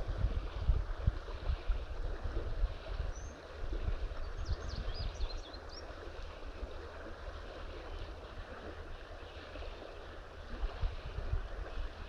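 Steady rush of flowing river water, with wind buffeting the microphone in low rumbling gusts. About four seconds in, a bird gives a quick run of high chirps.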